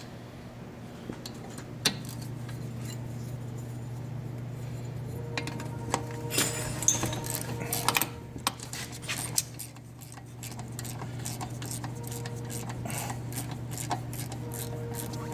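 Metal hand tools clinking, tapping and rattling against brake parts while a rear brake caliper is taken apart. A run of sharp clicks comes about six to nine seconds in, and quicker ticking follows later, over a steady low hum.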